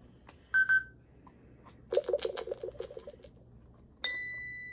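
Electronic lie detector game toy giving its verdict: two short beeps, then a rapid stuttering electronic buzz for about a second and a half, then a single chime about four seconds in that rings and slowly fades, the toy's signal for a truthful answer.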